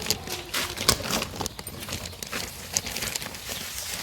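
Quick, irregular tapping and rustling of day-old chicks pecking and scratching at starter feed.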